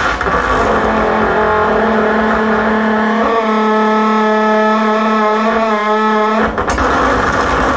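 A sheet of glass pressed against a performer's lips and face, amplified through a contact microphone into loud, distorted noise. About three seconds in, it settles into a steady buzzing tone with overtones, which cuts off abruptly about six and a half seconds in, leaving rough noise.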